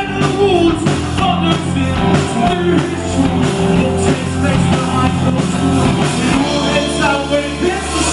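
A live rock band playing a song, with a singer's voice over guitar, bass and drums.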